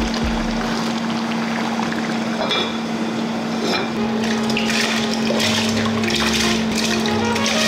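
Wet rice being tipped from a plastic bowl into a large pot on the stove: a pouring, splashing rush of grains and water, strongest in the middle and later part.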